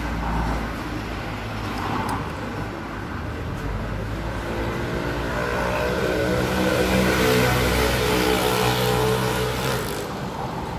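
Road traffic: a steady low engine hum, with a motor vehicle passing that grows louder from about six seconds in and fades near the end.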